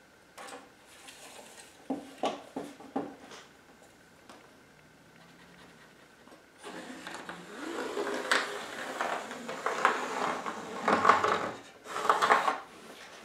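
Tools being handled on a plywood sheet: a few light knocks in the first few seconds, then from about the middle a stretch of scraping and scratching as a long spirit level is set along the sheet's edge and a cut line is marked against it.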